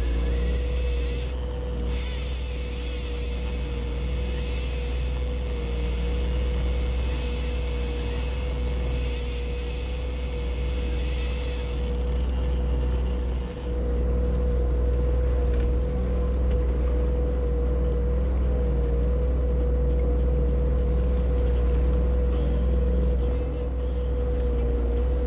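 Yamaha WaveRunner jet ski engine running steadily under way, a deep drone with a steady hum over it. A high thin whine above it stops about halfway through.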